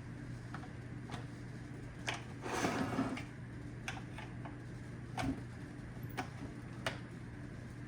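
Scattered light plastic clicks and taps, with a short scraping rustle about two and a half seconds in, as parts of an iRobot Roomba 690's plastic housing are worked loose by hand.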